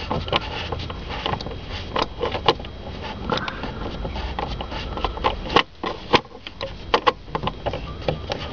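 Irregular small clicks and taps of hands working loosened bolts and parts on a car's steering-column shifter, over a low steady hum.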